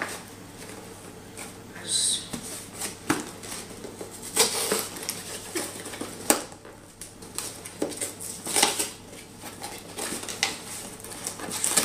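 Cardboard box being cut and pried open with small children's scissors: irregular snips, scrapes and rustling of cardboard and tape.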